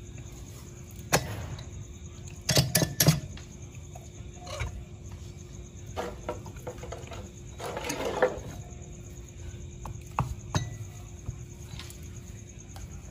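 Scattered short clicks and knocks, about ten of them, a few close together near three seconds in, over a faint steady hum; no engine is running.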